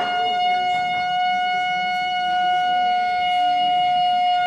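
Shofar blown in one long, unbroken blast on a single steady note.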